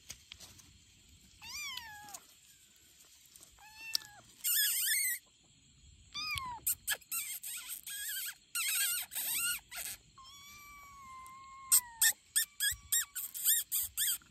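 Young tabby kittens mewing: scattered high-pitched mews with bending pitch, one long drawn-out mew about ten seconds in, then a quick run of short mews near the end.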